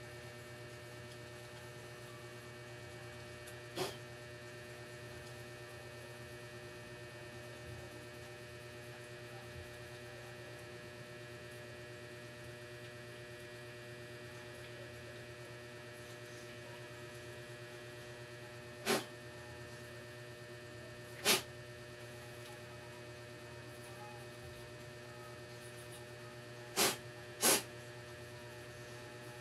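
Steady low mains hum, broken by five short sharp clicks, the last two in quick succession near the end.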